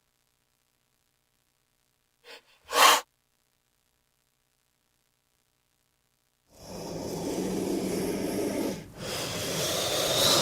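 King cobra hissing: a short, sharp puff of a hiss a little under three seconds in, then long breathy hisses from about six and a half seconds in, two in a row with a brief break near nine seconds.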